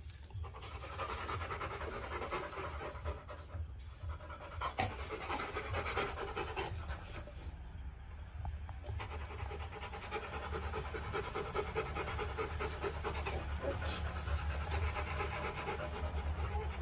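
A Rottweiler panting steadily with its mouth open.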